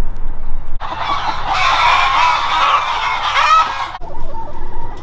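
A flock of laying hens clucking, many birds calling over one another. The calling starts suddenly about a second in and drops to a quieter level near the end.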